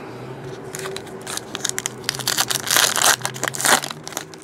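Foil wrapper of a basketball card pack crinkling and tearing as it is ripped open by hand. The crinkling starts about a second in and is loudest in the second half.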